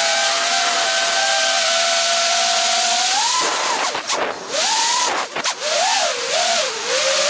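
FPV drone's electric motors and propellers whining over a steady rush of prop wash, heard from the onboard camera. Past the middle the pitch climbs, then the whine cuts out and drops sharply twice as the throttle is chopped. It comes back wavering up and down with the throttle.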